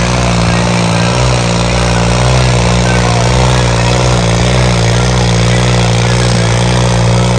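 New Holland 3630 four-cylinder diesel tractor engine running hard while pulling a load through soil. It is a loud, continuous drone whose pitch wavers slightly.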